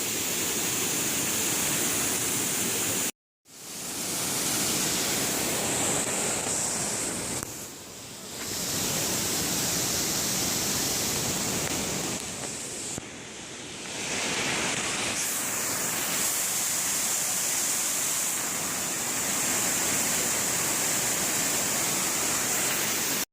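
Steady rushing roar of a waterfall's falling water, broken by a brief silent cut about three seconds in.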